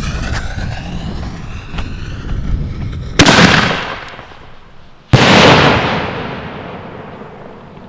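Black A+ salute canister shells: a fading rush from the mortar launch, then two sharp salute reports about two seconds apart, each followed by a long rolling echo that dies away.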